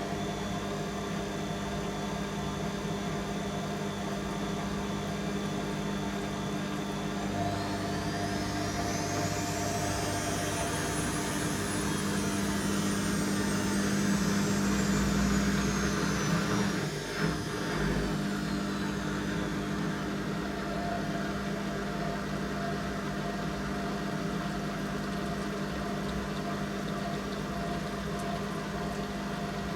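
Candy Aquamatic 100F washing machine in its 800 rpm final spin: a steady motor hum and drum whir, with a high whine that rises in pitch and then slowly falls back. A brief knock comes about halfway through.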